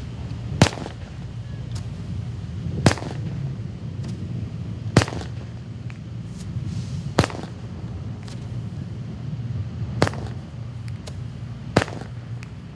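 Black Cat "Desert At Night" firework cake firing shot after shot: six sharp bangs about two seconds apart, with fainter pops in between, over a steady low rumble.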